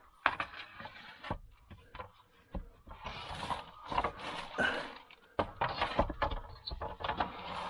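Irregular knocks, scraping and rustling as a leftover newspaper is pulled out of a hot stone bread oven, with a flurry of rustling and scraping in the middle of the stretch.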